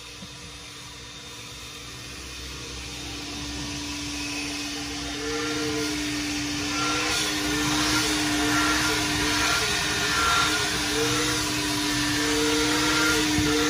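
Self-serve car wash vacuum sucking through its long hose as the nozzle is worked over a sleeper-cab mattress: a steady hum under rushing air that grows louder over the first half, with a tone that wavers up and down about once a second.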